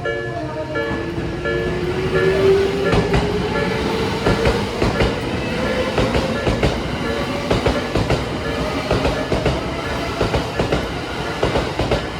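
A Tobu electric commuter train runs over a level crossing. Its motors give a whine that rises in pitch over the first half as it picks up speed, and the wheels clatter over rail joints. The crossing's warning bell dings in a steady repeating pattern near the start, then fades under the train.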